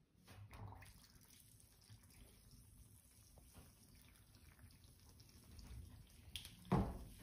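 Faint water sounds in a bathtub as a bath bomb fizzes in the water, with small drips and ticks. A short, louder noise comes near the end.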